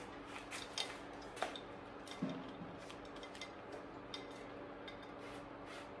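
Light clicks and a few small knocks of bicycle cable parts and tools being handled on the workbench, the sharpest about one and a half seconds in, over a faint steady hum.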